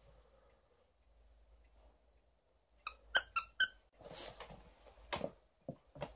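Squeaker in a plush dog toy squeezed four times in quick succession, short high-pitched squeaks, followed by rustling and a couple of soft thuds as the toy is handled and tugged.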